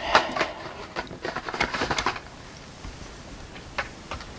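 Carded toy cars' plastic blister packs crinkling and clicking as they are handled: short bursts of rustling and light clicks in the first couple of seconds, then a single click near the end.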